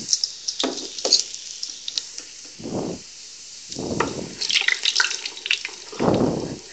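Chopped garlic sizzling steadily in hot oil in a pot, with a few short swishes as a spatula stirs it, about three in all.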